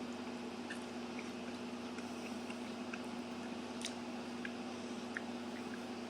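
Someone chewing a hazelnut chocolate with crispy rice puffs: faint, scattered small crunches over a steady low hum.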